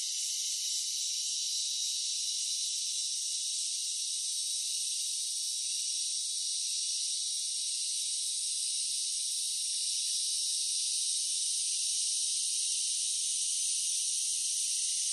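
Dense, steady chorus of insects such as crickets, a continuous high-pitched shrilling with no low sounds under it.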